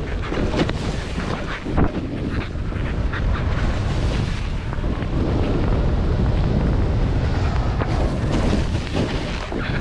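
Skis running fast over chopped-up snow, with wind buffeting the camera microphone in a steady low rumble. Through it come sharp knocks and scrapes as the skis hit bumps, the loudest just under two seconds in.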